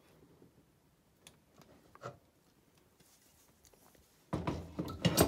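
Metal tool handling around a Fiat 126 engine's camshaft timing sprocket: a few light clicks, then a louder clatter of several metal knocks near the end as a large adjustable wrench is lifted off the sprocket and set down.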